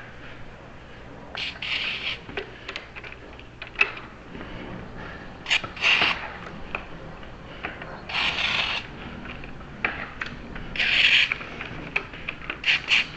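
Aerosol spray hissing into a lock in about four short bursts, with clicking and ratcheting from the lock mechanism being worked between them.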